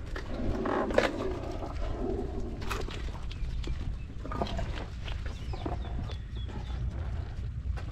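Birds calling, with short high chirps, over a steady low rumble of wind on the microphone and scattered clicks.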